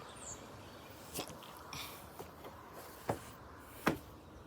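Faint background hiss with a few short, sharp clicks, the loudest two about three and four seconds in.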